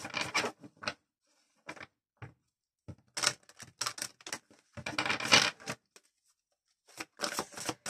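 A deck of oracle cards shuffled by hand: bursts of rapid card clicks and flicks in several bouts, with short pauses between them.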